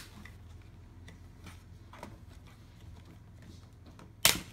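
Plastic screen bezel of an Acer TravelMate B113 laptop being pried off by hand: faint ticks and creaks as its snap clips are worked loose, then one sharp loud snap near the end as a clip pops free.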